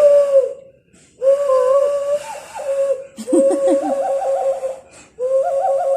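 A steady, whistle-like pitched tone held in four long stretches with short breaks between them. From about three seconds in, quick warbling notes run over the top of it.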